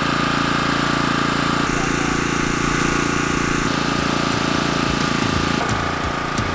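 Steady mechanical hum of running machinery at a constant pitch, changing character near the end.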